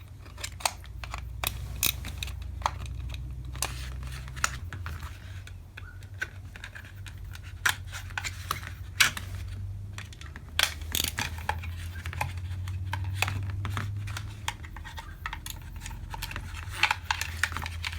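Irregular small clicks, taps and scrapes from a screwdriver working on a toy revolver's plastic and metal parts, as the grip is levered off with a flathead screwdriver, over a steady low hum.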